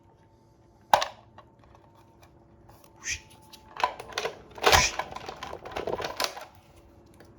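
Clicks and rattles of plastic toy guns being handled: one sharp click about a second in, then several bursts of clicking and rattling, the loudest near the middle.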